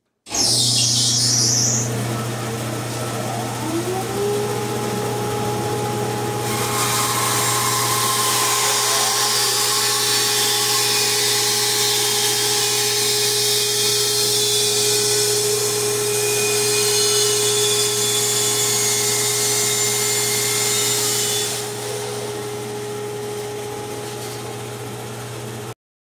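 Rockwell Model 20 bandsaw switched on, its motor humming and coming up to speed within a few seconds. About six seconds in, the blade starts ripping through a log pushed on a sled, a loud steady hiss over the motor hum that lasts about fifteen seconds. Then the blade runs free and quieter until the sound cuts off abruptly.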